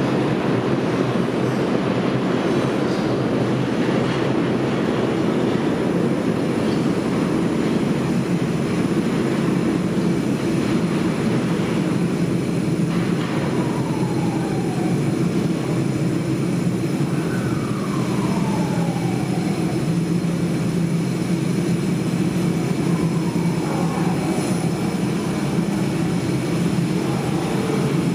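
R142 subway train pulling out of the station into the tunnel: a steady loud rumble of wheels and motors, with steel wheels squealing a few times from about halfway through, each squeal falling in pitch.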